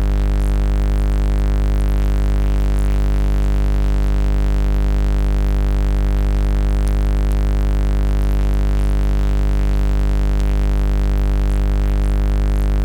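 A loud, perfectly steady electronic drone with a deep hum at the bottom and many higher pitches held without change, cutting off suddenly near the end.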